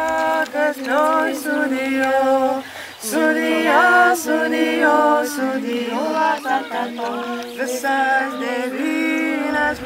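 A small group of women's and men's voices singing unaccompanied in several parts, with a short break between phrases about three seconds in.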